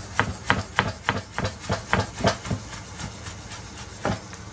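Chef's knife chopping fresh sage leaves on a wooden chopping board: a quick, even run of knife strokes, about five a second, through the first half, then a single chop near the end.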